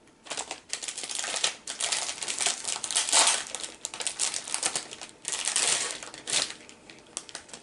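Plastic wrapping of a Peeps marshmallow candy package crinkling as it is handled and torn open, with dense crackling that thins to a few scattered crackles near the end.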